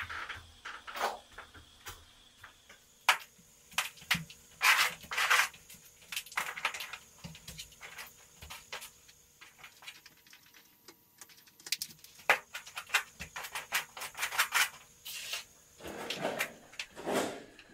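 A flat paint scraper scraping, rubbing and tapping against a large canvas hung on a wall, in irregular bursts with sharp clicks between them.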